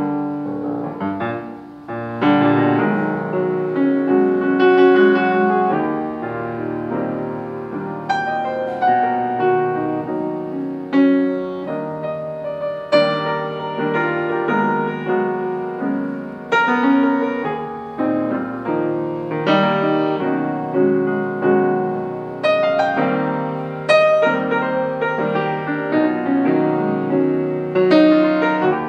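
Solo piano played on a Yamaha grand: full chords and quick runs with the notes ringing on, and louder accented chords every couple of seconds.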